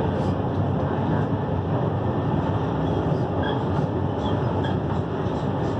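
České dráhy railjet passenger train running on the line, heard from on board: a steady, even rumble of wheels on rail and coach noise, with faint light ticks.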